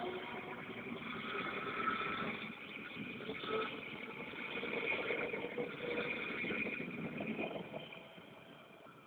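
Berlin S-Bahn electric train pulling away past the platform: wheels rumbling on the track with a steady whine from the traction motors, fading away as the train recedes near the end.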